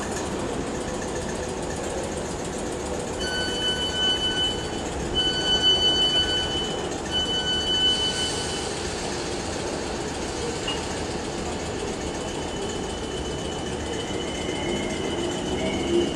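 Three long electronic warning beeps from a Class 455 electric train standing at the platform with its doors open, the door-closing alarm. A steady high tone follows, over a constant rumble of station noise.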